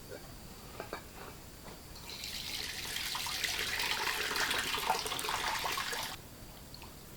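Water running from a tap into a sink for about four seconds, starting about two seconds in and cutting off suddenly, after a few light clicks.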